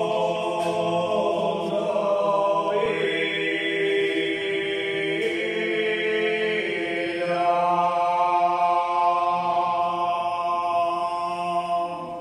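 A group of men singing a slow devotional chant in unison, unaccompanied, in long held notes that step from one pitch to the next; the singing dies away near the end.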